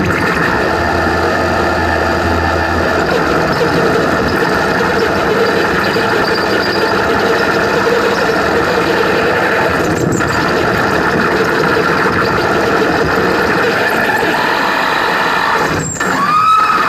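Live noise-music performance: a loud, dense wall of electronic noise with steady droning tones running through it. About sixteen seconds in it dips for a moment and gliding high tones sweep in.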